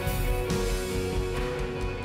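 Background music with held tones and a regular beat, about one hit a second.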